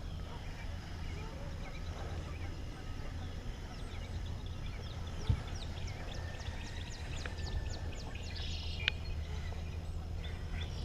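Wild birds calling: a quick series of high, falling chirps for a few seconds past the middle, then a short buzzy call, over a steady low hum.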